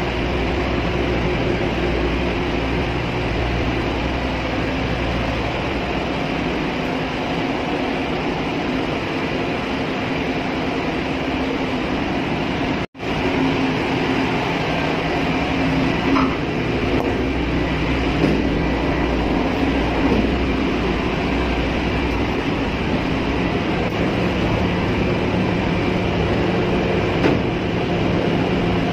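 Steady, loud drone of a ship's engine-room machinery, heard from inside the main engine's enclosed scavenge space, with one brief break near the middle.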